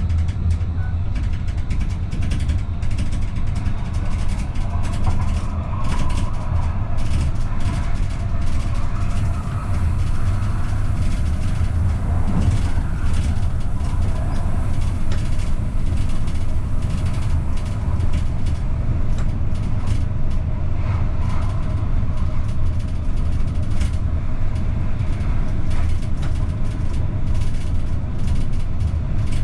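AVG Stadtbahn light-rail train running along the line, heard from the driver's cab. It makes a steady low rumble of wheels on rail, with a faint whine and scattered light clicks.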